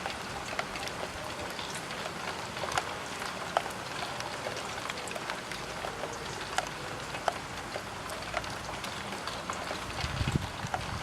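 Rain falling on a roof window: a steady patter with many sharp, irregular taps of single drops hitting the glass. A brief low rumble comes near the end.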